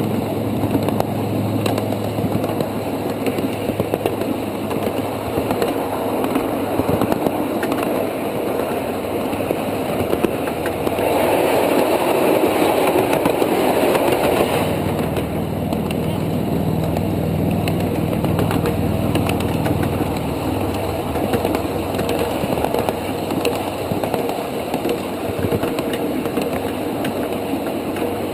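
Ride-on miniature railway train running along its track: a steady engine hum mixed with the rumble of the wheels on the rails, growing louder for a few seconds about halfway through.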